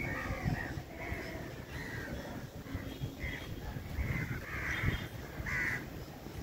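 A bird calling over and over outdoors, a string of short calls, loudest about two thirds of the way through.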